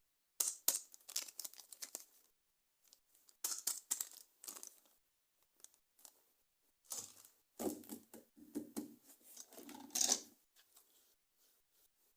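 Toy packaging being torn open. It comes in several bursts of rapid crackling, and the last burst is longer, with a lower rustle and its loudest point near the end.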